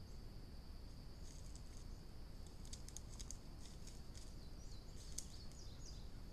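Field ambience: a steady, high-pitched insect drone, with short bird chirps and chips coming in over it from about a second in and a few quick gliding calls near the end, all over a low hiss.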